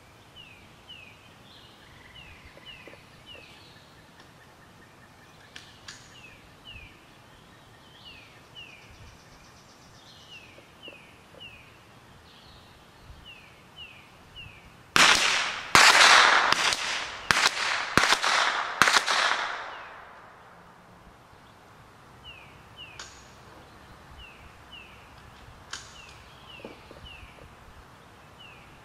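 An AR-15 with a CMMG .22 LR bolt conversion kit firing a quick string of about seven shots, roughly 15 seconds in, each crack echoing off the surroundings. Between the shots a bird gives short, repeated falling chirps.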